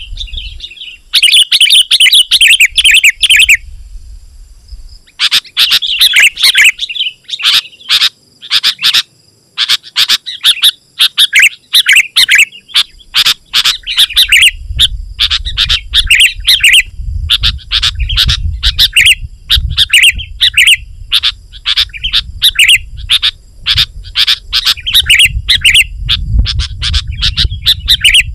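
Sooty-headed bulbul (kutilang) singing vigorously. There is a dense chattering burst at the start, then, after a short pause, a long run of short, loud phrases in quick succession. A low rumble sits underneath in the second half.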